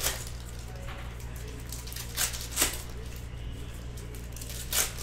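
Foil trading-card pack wrappers crinkling and tearing as packs are ripped open by hand: four short, sharp rustles, one at the start, two close together a little after two seconds and one near the end, over a steady low hum.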